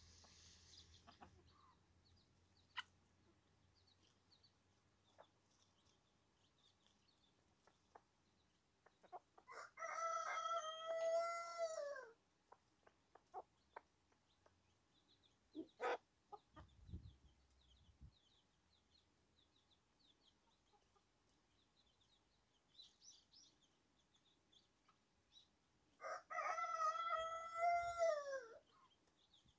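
A rooster crowing twice, each crow about two and a half seconds long and ending in a falling note. Faint high peeping of chicks between the crows.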